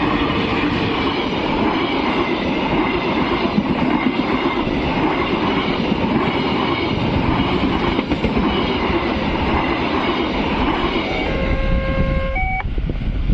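A train passing over a level crossing, its wheels clattering in a repeating rhythm over the rails. Near the end a short steady tone sounds over it.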